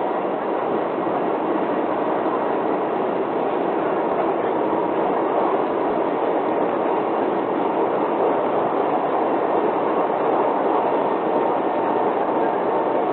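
Kintetsu limited express train running at speed, heard from inside the passenger car: a steady rumble of wheels on rail and running noise, with a faint steady high tone.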